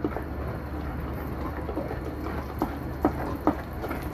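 Silicone spatula stirring flour, water and oil into a thick wet batter in a glass bowl: a steady wet stirring sound, with a few sharper clicks where the spatula knocks the bowl in the second half.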